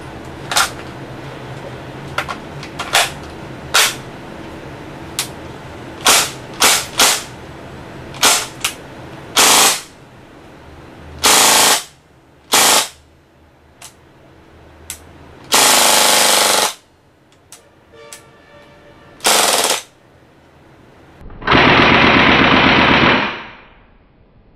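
Maruzen MP5K gas airsoft gun, charged with top gas, firing: about a dozen sharp single shots at first, then four bursts of rapid automatic fire, the longest about two seconds, near the end.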